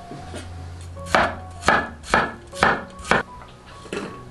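Cleaver chopping peeled water chestnuts: six sharp chops, about two a second, starting about a second in.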